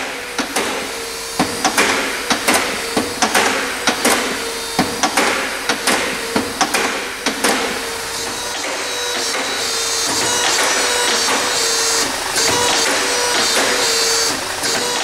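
A single-plate hydraulic play detector working under a car's front wheel. Its pump hums steadily while the plate is driven back and forth with sharp knocks, about two to three a second. About halfway through the knocks stop and a steadier, hissing whir takes over.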